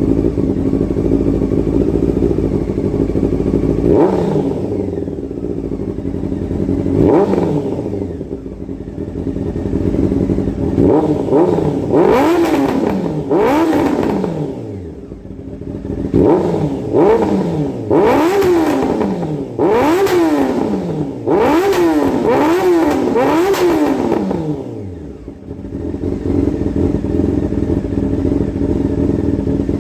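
Honda CBR motorcycle engine, breathing through a homemade exhaust muffler, idling and then revved in sharp throttle blips, each rising quickly and dying back down. It gives two single blips first, then a run of quick blips through the middle, and settles back to a steady idle near the end.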